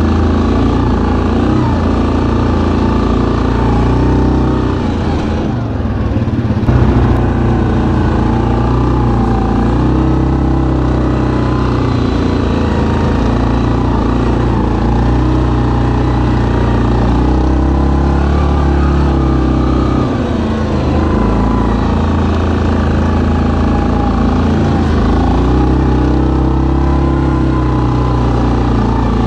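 2019 Yamaha Kodiak 700 EPS ATV's single-cylinder engine running while the quad is ridden along a trail, its pitch rising and falling with the throttle. It drops off for a moment about six seconds in, followed by a short louder jolt.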